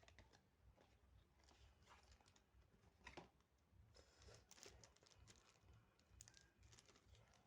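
Faint, irregular clicks and rustles of packaging and a boxed router being handled, with a sharper click about three seconds in.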